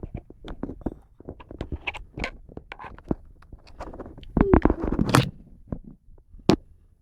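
Irregular small scratches, clicks and rustles close to the microphone. A louder cluster comes about four and a half seconds in.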